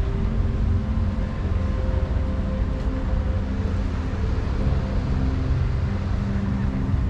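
Steady low rumble of motor engines, with engine tones that shift slowly in pitch.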